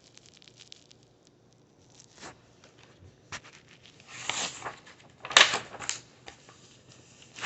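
Pages of a picture book being handled and turned: a string of short paper rustles and soft taps, the loudest about five and a half seconds in.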